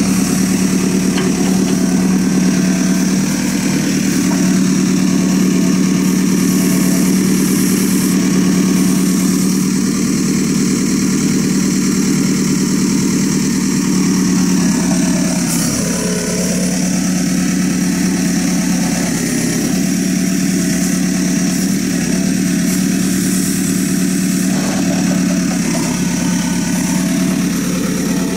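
Diesel engine of a JCB 3CX backhoe loader running steadily while the backhoe digs soil. Its pitch dips briefly about halfway through, then recovers.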